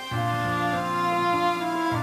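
Background music of long held notes, with a low bass note coming in just after the start and pausing briefly near the end.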